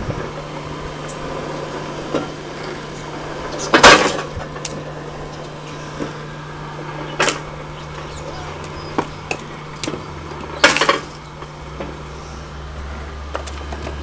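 Electric motor and gearbox of a homemade crank-driven firewood splitter humming steadily, with three loud cracks about three seconds apart as the ram splits logs, and smaller knocks and clatter of wood between.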